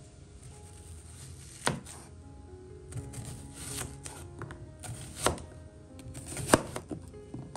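Kitchen knife slicing through a peeled onion and knocking on a wooden cutting board, several sharp knocks about a second apart.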